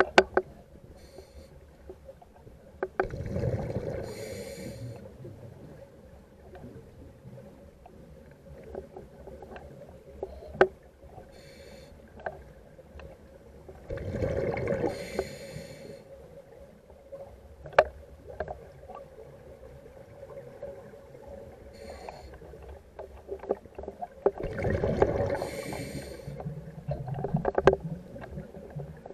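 Water sloshing and surging in three slow swells about ten seconds apart, with single sharp clicks between them over a faint steady hum.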